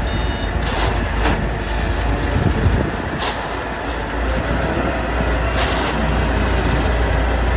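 Lai Gong H30 self-loading concrete mixer running with a steady low engine rumble, broken by a few short hisses. A last reversing beep sounds right at the start.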